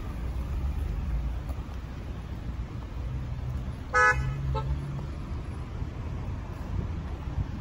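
A car horn toots twice about four seconds in: one short, loud blast, then a fainter, shorter one about half a second later, over a steady low rumble.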